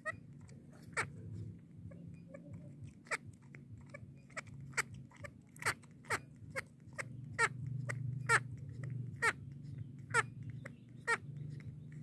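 Baby macaque making short squeaky sounds as it sucks milk from a bottle, about one a second, each a quick drop in pitch.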